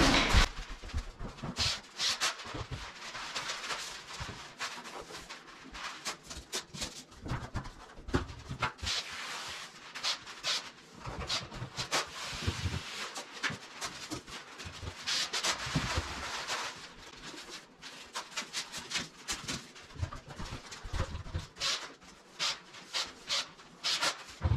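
Masking paper and tape being handled and applied: irregular crinkling, rustling and short rips and clicks.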